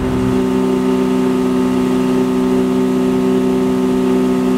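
Boat's outboard motor running at a steady speed, holding one even pitch throughout.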